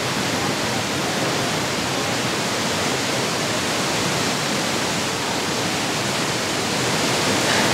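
Steady, even rush of white water from Big Falls on the Humber River.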